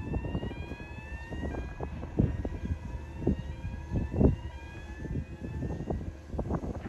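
Wind buffeting the microphone in uneven gusts, the strongest about two and four seconds in. Under it runs a faint mechanical whine that rises in pitch and resets roughly once a second.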